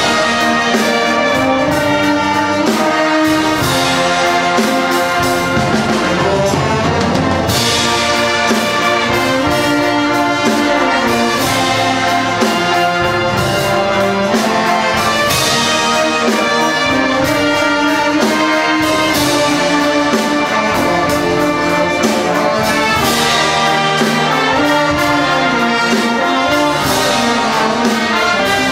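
Live concert band playing, led by its brass (trumpets, trombones, tubas) with woodwinds and percussion. Crashes from the percussion recur about every four seconds.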